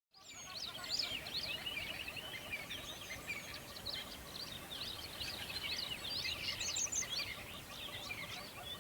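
Many songbirds chirping and twittering at once in a dense, overlapping chorus, over a steady background rush of river water; the sound fades in quickly at the start.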